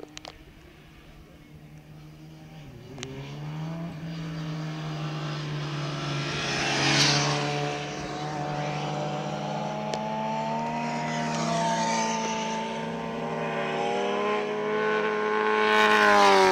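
Sport motorcycle engines approaching at speed and passing close, growing steadily louder, with one bike going by about seven seconds in and another near the end.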